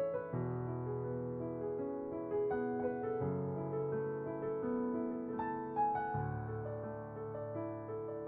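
Background music: a solo piano playing a slow, gentle melody over sustained bass notes.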